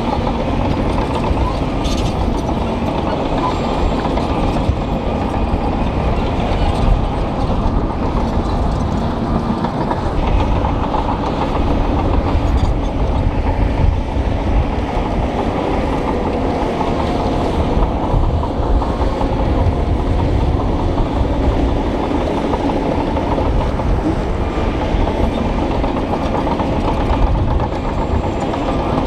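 Shantui crawler bulldozer working hard: its diesel engine runs steadily under load with a continuous clatter of steel tracks as it pushes rock and gravel.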